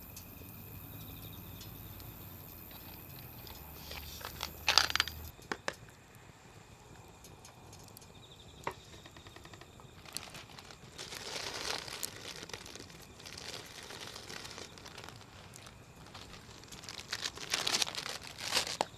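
Wood campfire crackling, with scattered sharp pops and three louder bursts of crackling about five seconds in, around twelve seconds and near the end.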